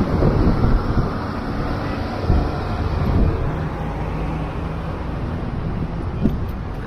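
Steady traffic rumble from vehicle engines, with no single event standing out.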